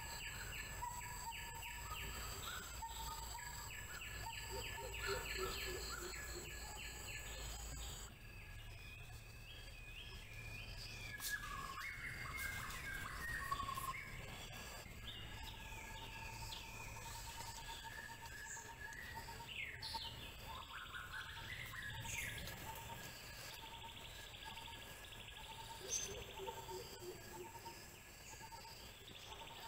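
Forest ambience of several birds chirping and singing in short trills and phrases, over a steady high whine that stops about a quarter of the way through.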